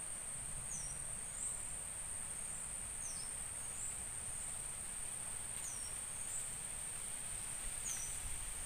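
Outdoor insect chorus: a steady high-pitched trill of crickets, with short falling chirps repeated about once a second, over a faint low background rumble.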